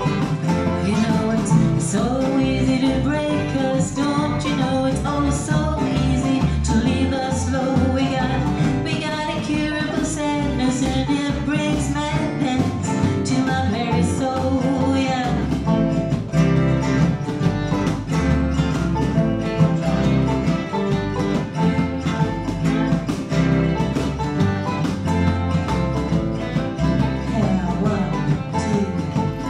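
Live acoustic folk-blues band playing an instrumental passage: a fiddle carrying the melody over strummed acoustic guitar, electric guitar and banjo, with a steady beat.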